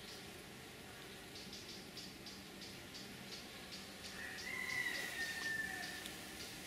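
Honeybees humming faintly around an opened hive, with soft ticks about three times a second. About four seconds in comes a single high, drawn-out call, falling slightly in pitch and lasting about a second and a half.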